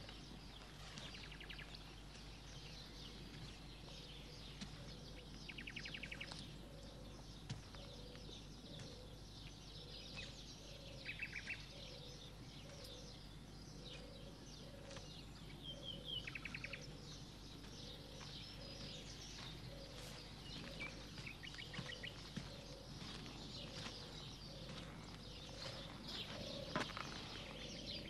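Faint woodland birdsong: short fast trills repeated every few seconds over a steady run of soft, low repeated calls.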